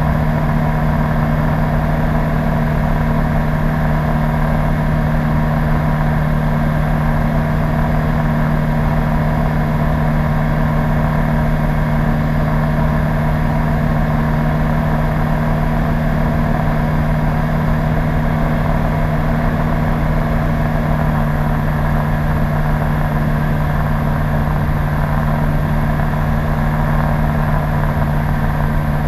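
PS-28 Cruiser light aircraft's Rotax 912 engine and propeller running at a steady speed, a constant drone that holds one pitch throughout.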